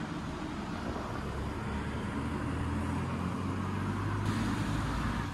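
A motor vehicle's engine running close by on the street, a steady low hum that grows slowly louder over a few seconds.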